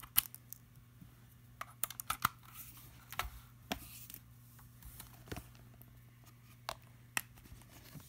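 Scattered light clicks and rattles of a USB charging cable being unplugged and a different cable plugged into the charger and tablet, over a faint steady hum.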